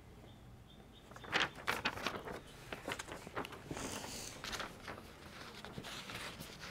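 Chef's knife slicing through a tender smoked beef short rib and scraping on the cutting board: a series of soft clicks and scrapes starting about a second and a half in.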